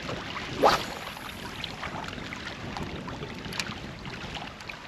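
A spinning rod cast: one quick rising swish about half a second in, then small waves lapping at the stony shore with light wind on the microphone, and a single sharp click about three and a half seconds in.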